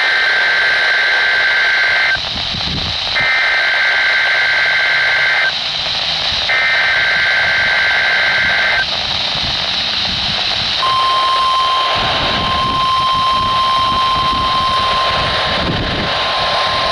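NOAA Weather Radio broadcast sending an Emergency Alert System Required Weekly Test, heard through a radio over a steady hiss of static. First come three two-second bursts of warbling SAME header data tones, about a second apart. Then, about two-thirds of the way in, the steady 1050 Hz weather radio warning alarm tone starts and holds.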